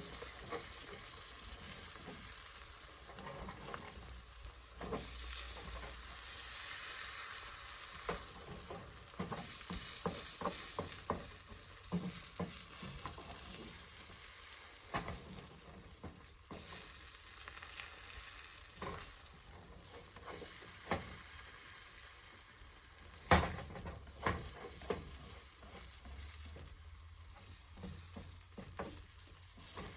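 Spinach and garlic sizzling in butter in a frying pan, a steady hiss broken by scattered clicks and taps of a utensil, with one sharper knock a little past the middle.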